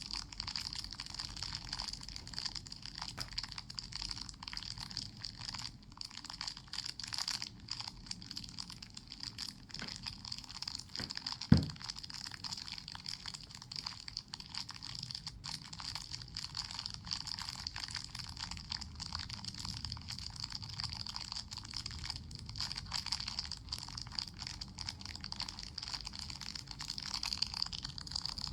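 Wood fire burning, with irregular crackling and small pops over a steady high hiss; a single loud, dull thump a little before halfway.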